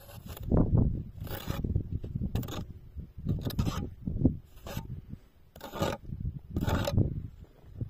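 Hands scraping and scooping crusted snow in repeated strokes, about one a second, over a low rumble.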